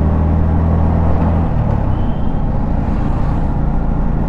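Motorcycle engine running while riding, with a steady low drone that breaks up into a rougher, uneven rumble about a second and a half in.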